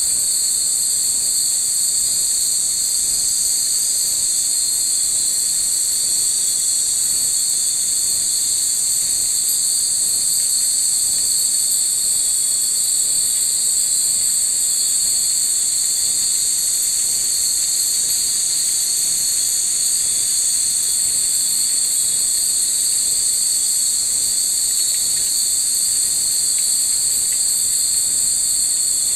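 A steady, high-pitched chorus of insects shrilling without a break.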